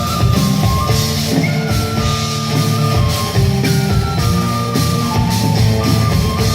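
Live band playing an instrumental passage with a steady drum beat, strong bass notes and a stepping melody line.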